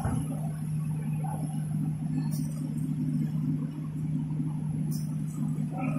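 Toilet paper and kitchen towel making machinery running with a steady low hum.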